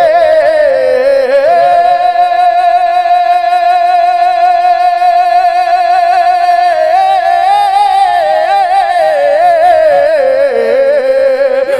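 A man singing an Urdu naat into a microphone, drawing out a vowel with no words. He holds one long steady note for about five seconds, then breaks into wavering ornamental turns that sink in pitch toward the end.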